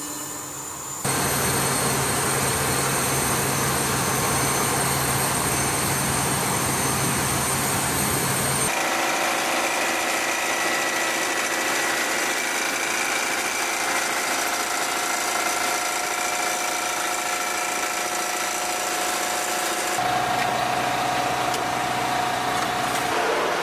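Steady roar of turbine machinery on a jet bomber's flight line, with high-pitched whines over the roar. The sound changes abruptly about a second in, about nine seconds in and near twenty seconds, as if cut between shots.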